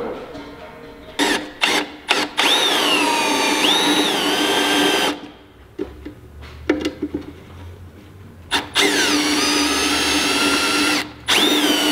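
Cordless drill boring into a metal oil pan: a few short trigger blips, then two long runs of motor whine whose pitch drops as the bit bites into the metal and recovers, with a pause between them.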